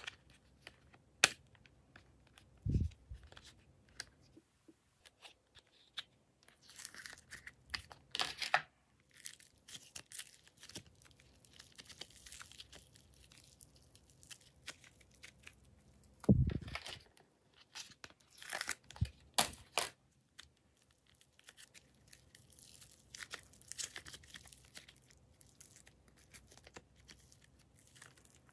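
Soft clay slime being squeezed, stretched and pulled apart by hand, giving sticky tearing and crackling sounds. There is a sharp click about a second in, and a couple of low thuds, the loudest at about 3 and 16 seconds.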